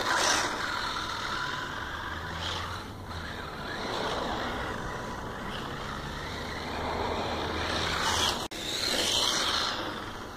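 Tamiya TL-01 electric radio-controlled car driving off across icy, slushy pavement: a steady hiss of motor and tyres, with a low rumble underneath for much of it.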